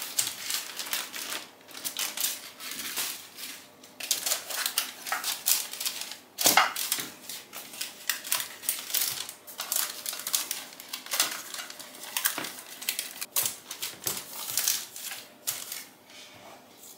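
Baking paper rustling and crinkling as a sheet of puff pastry is unrolled and pressed into a parchment-lined baking tray: a steady run of quick crackles, loudest about six and a half seconds in.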